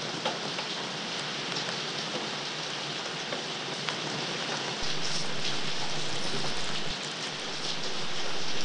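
Steady rain, a dense even hiss with scattered drop ticks, getting louder about five seconds in and swelling again near the end.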